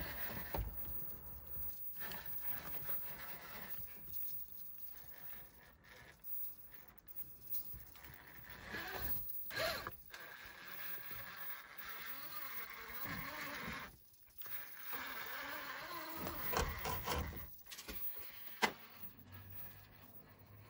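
An Axial Wraith RC rock crawler's electric motor and drivetrain whining in short spurts as it crawls over wooden blocks, with knocks and scrapes of its tyres and chassis on the wood. There are a few sharp knocks, the loudest late on.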